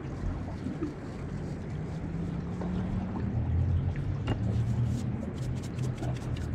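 Spice mix shaken out of a jar over fish fillets, heard as a run of quick ticks near the end, over a steady low hum.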